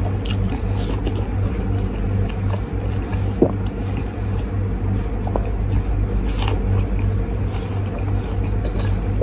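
Wet biting and slurping of juicy watermelon, with squelching mouth sounds and a sharp click about a third of the way in, over a steady low hum.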